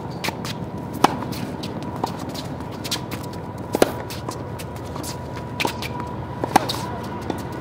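Tennis racket hitting the ball on groundstrokes: three sharp pops roughly two and a half to three seconds apart, with fainter knocks in between.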